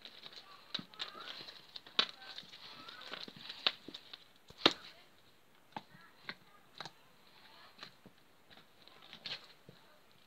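Purple slime being squished and poked by hand, giving irregular sharp wet clicks and pops, the loudest about halfway through.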